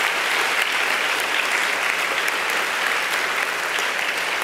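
Steady applause from a large group clapping, a dense wash of many hands.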